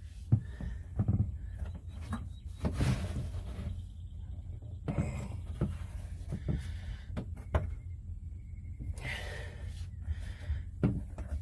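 A pipe being forced by hand through a tight rubber uniseal in the tank wall: irregular knocks and thuds, with heavy breaths from the effort.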